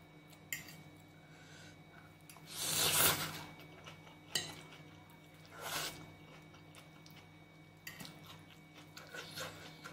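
Curry noodles being slurped off a fork, loudest about three seconds in and again near six seconds, with sharp clicks of the metal fork against the plate and wet chewing in between.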